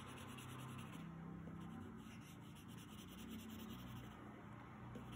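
Colored pencil shading on paper: many quick, faint scratching strokes going back and forth to blend the colours.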